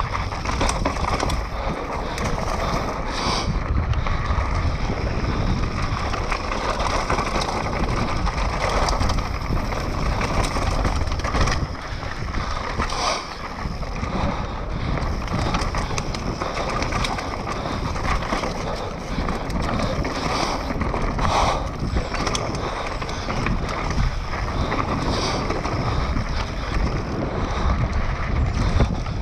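Mountain bike riding down a dirt singletrack: tyres rolling over dirt and rock, with scattered clatters of the bike over bumps. Wind rumbles steadily on the helmet camera's microphone.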